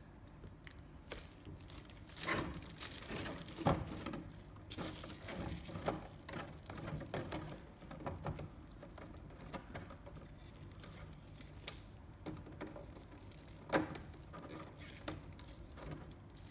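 Clear plastic blister tray from a figure's packaging handled by hand: uneven crinkling and clicking of the plastic, with two sharper clicks, one a few seconds in and one near the end.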